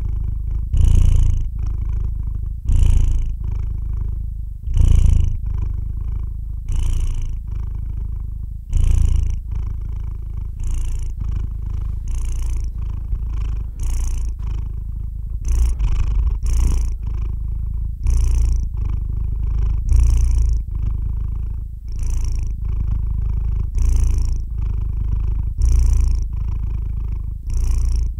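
Sleeping calico cat purring steadily, the purr rising and falling with each breath, about one breath every two seconds.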